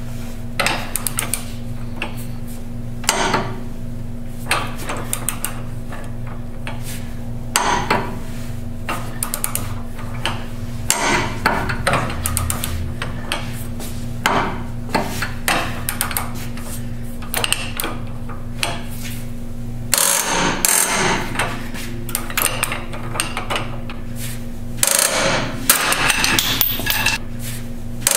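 Ratchet wrench turning the forcing screw of a pitman arm puller on a steering gearbox's pitman arm, in irregular strokes of metal clicks and knocks that grow busier near the end. A steady low hum runs underneath.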